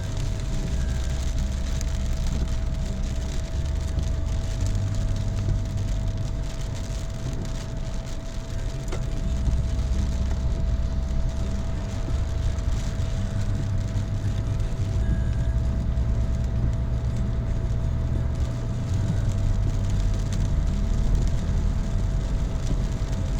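Heavy rain hissing steadily over a constant low rumble of a motor vehicle, with a faint steady whine held throughout.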